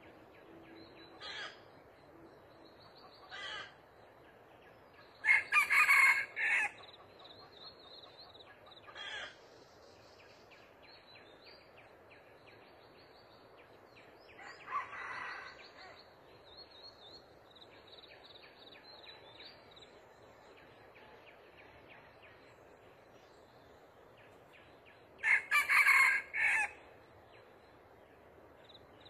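Red junglefowl cock crowing, two loud broken crows about twenty seconds apart with a few fainter calls between them. A steady high trill runs underneath.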